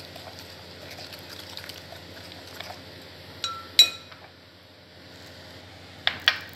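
A spoon stirring runny cream and mayonnaise in a glass bowl, with soft wet sounds and faint small clicks. A little under four seconds in the spoon strikes the glass bowl with a sharp, briefly ringing clink, and two more clinks follow near the end.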